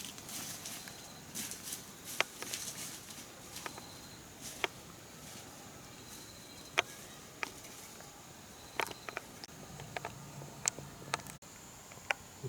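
Steady high-pitched insect drone of the rainforest, with scattered sharp clicks and taps at irregular intervals and a brief low hum a little before the end.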